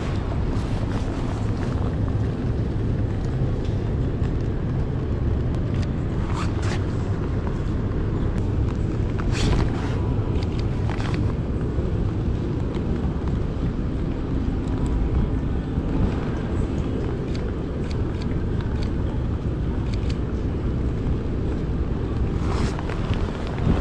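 Steady low rumbling noise of wind and heavy rain on the microphone, with a few brief sharp clicks or taps.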